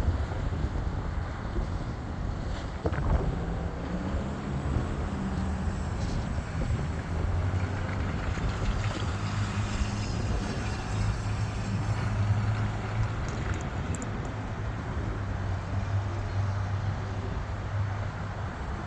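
Jet engine noise: a steady rumble with a low hum that grows stronger in the middle and fades toward the end.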